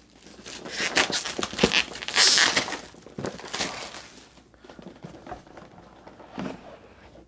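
Clear plastic shrink-wrap crinkling and tearing as it is pulled off a cardboard board-game box, loudest a little over two seconds in. After about four seconds it quiets to soft handling of the box, with a light tap near the end.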